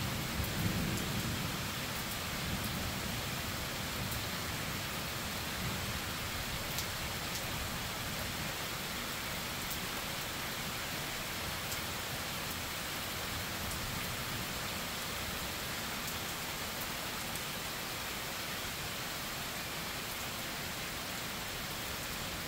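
Steady rain falling, with a low roll of thunder about a second in that dies away over the next few seconds.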